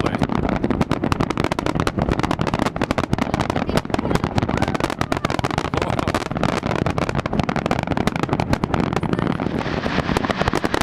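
Aerial fireworks display: a dense, unbroken barrage of rapid bangs and crackles.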